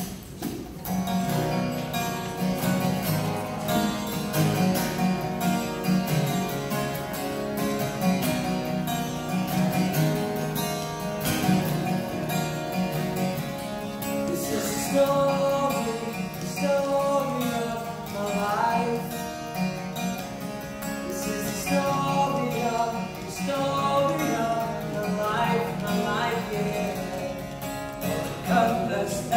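Live acoustic pop song: two acoustic guitars strummed in chords, with men's voices singing from about eleven seconds in.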